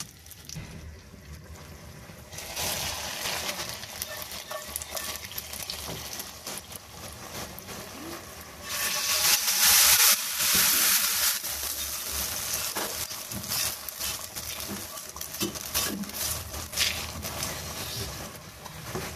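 Hot tadka of butter and oil with whole dried red chillies and cumin poured from a frying pan into a pot of chicken gravy, hissing loudly for about three seconds near the middle as it hits the liquid. Before and after, a quieter sizzle with a wooden spoon stirring in the steel pot.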